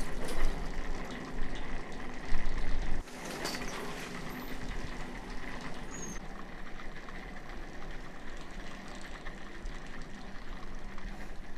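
Ski surface lift's return bullwheel and haul cable running, a steady mechanical hum. A heavy low rumble fills the first three seconds and cuts off suddenly.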